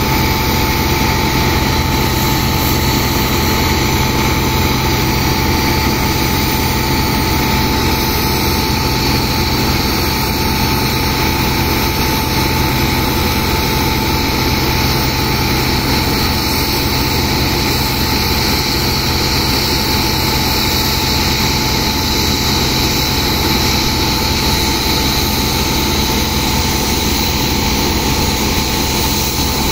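Engine-driven pump running steadily and loudly without a break, with the hiss of high-pressure water jets washing sand from a barge hold so it can be pumped out as slurry.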